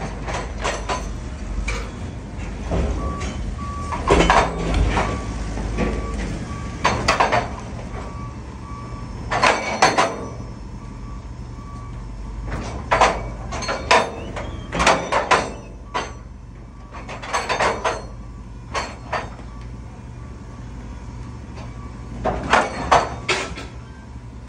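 Tires being loaded into a tire baler: irregular heavy thuds and clatters as they drop in, over a steady low machinery rumble, with a backup alarm beeping through the first third or so.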